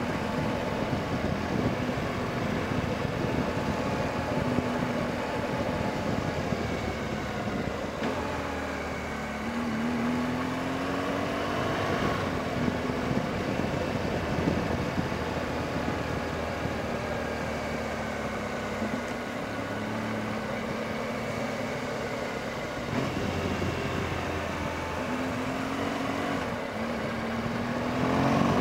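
BMW R1200GS Adventure's flat-twin boxer engine running on the move, its pitch rising and falling with the throttle, with quick rises near the middle and again near the end, over a steady rushing noise.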